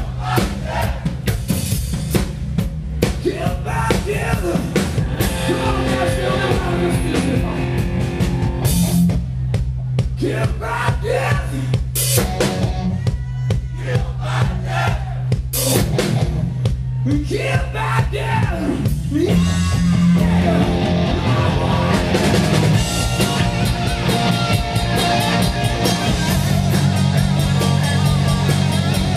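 A live hard rock band playing loudly: electric guitars, bass guitar and a drum kit. The parts change about two-thirds of the way through.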